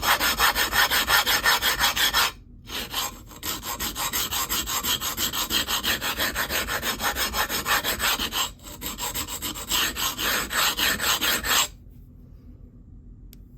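Steel knife edge scraped rapidly back and forth across an extra-coarse DMT diamond plate (about 220 grit), edge-on "bread knifing" to grind out chips and stressed steel along the edge. The harsh rasping strokes come about four or five a second, break off briefly twice, and stop shortly before the end.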